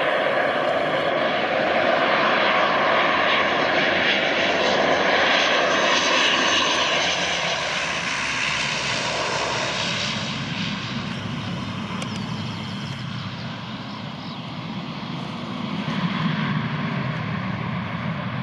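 Twin-engine Bombardier Dash 8 turboprop landing, its engines and propellers droning. The drone is loudest over the first seven seconds as the plane passes close on final approach, eases off after touchdown, and swells again in a lower rumble near the end as it slows on the runway.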